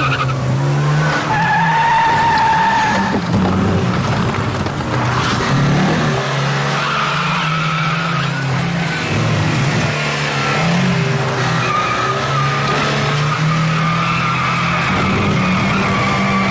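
A car doing handbrake turns: the engine revs up and down over and over while the tyres squeal and skid, loudest about one to three seconds in and again through the second half.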